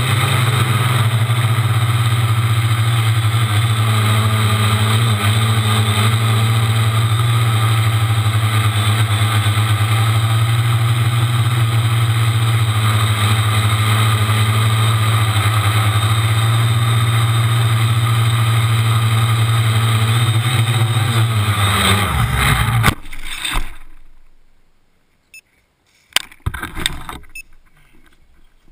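Small electric quadcopter's motors and propellers droning steadily. About 22 s in the pitch sags and the motors wind down and stop, followed by a few short knocks and rustles.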